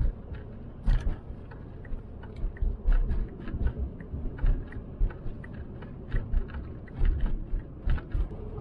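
Cabin noise inside a moving VW T4 Transporter van: a steady low road and engine rumble, broken by frequent short knocks and rattles.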